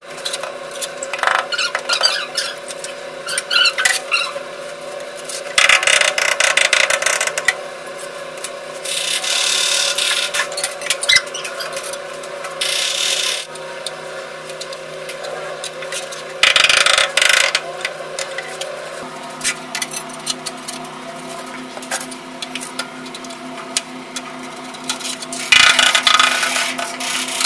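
Steel trowel scraping and spreading cement mortar over the backs of ceramic wall tiles and in a mortar pan, in separate rasping strokes of a second or two, with light taps between. A steady low hum runs underneath.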